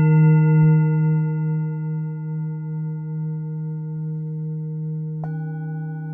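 Singing bowl ringing on after a strike, its steady tones slowly fading with a gentle wavering. A second strike about five seconds in adds new tones to the ringing.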